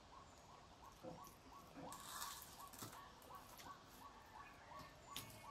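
Faint, steady animal chirping: a short call dropping in pitch, repeated about three times a second. Over it come a few soft clicks of fingers mixing rice on steel plates.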